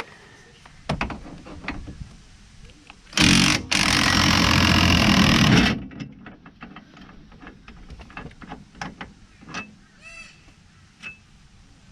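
Impact wrench (rattle gun) hammering for about two and a half seconds, with a brief break just after it starts, while undoing a suspension bolt. Light clicks and clinks of sockets and tools before and after it.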